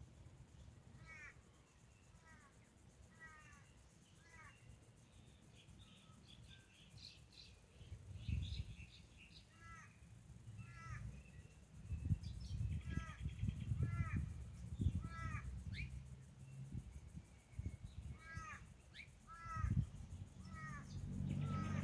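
Birds calling: repeated short hooked calls in runs of three or four, with higher chirps between them. Under them is a low, uneven rumble that starts about eight seconds in and is the loudest sound from then on.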